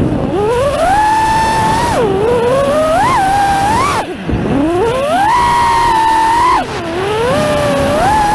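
Four brushless motors and props of a 5-inch FPV freestyle quadcopter (GEPRC SpeedX 2306.5 1850kv motors on 6S, Gemfan 51433 props) whining as throttle is punched and chopped. The pitch falls sharply and climbs back about three times, near the start, about four seconds in and near seven seconds, over a rush of air noise.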